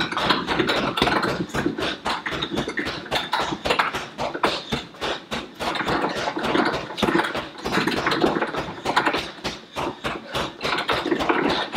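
Gloved fists hitting a hanging heavy punching bag in a quick, steady series of straight punches, several thuds a second.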